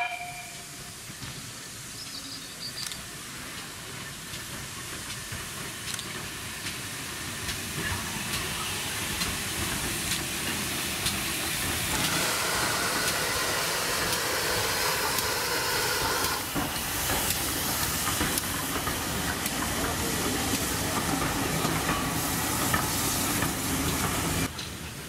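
GWR 64xx pannier tank steam locomotive hauling a rake of coaches past, with a steady hiss of steam that grows louder as the train nears, and light clicks of wheels over rail joints. A brief whistle-like note at the very start is the loudest moment.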